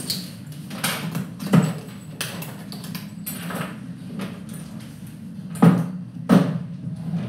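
Aluminium-framed hard case being handled on a wooden table, its lid and frame knocking and clacking, with a few sharp knocks about a second and a half, five and a half and six seconds in. A steady low hum runs underneath.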